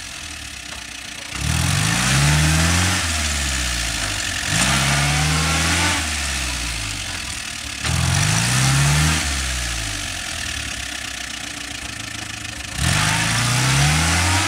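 UAZ Bukhanka van's engine revving hard four times, about every three seconds, each rev rising in pitch and then dropping back, as the van tries to drive out of the mud ruts it is stuck in.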